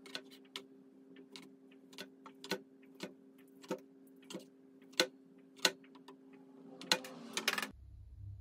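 A kitchen knife slicing cooked pork belly, its blade tapping down on a plastic cutting board roughly once or twice a second, with a few louder taps near the end, over a steady hum. About three-quarters of the way through, the taps stop and only a quiet low hum is left.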